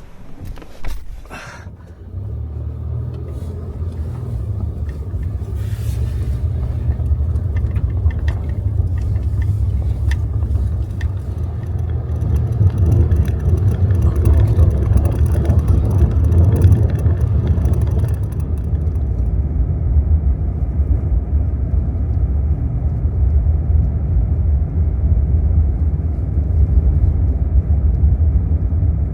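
Honda N-VAN kei van on the move: a steady low engine and road rumble that starts about two seconds in and grows louder over the next ten seconds, after a single click about a second in.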